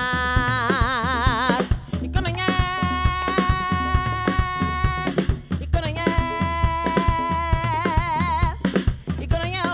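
Live band music: a woman sings three long held notes, each breaking into wide vibrato near its end, over a steady drum-kit beat of bass drum and snare.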